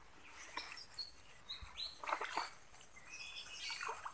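Faint, scattered bird chirps: short high calls, a few of them about a second apart. A few soft rustling noises fall in the second half.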